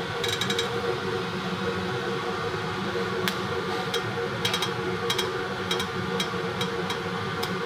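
Laser welder at work on an aluminium cylinder head: a steady machine hum with short, sharp ticks as the laser fires. The ticks come as a small cluster near the start, then singly about every half second.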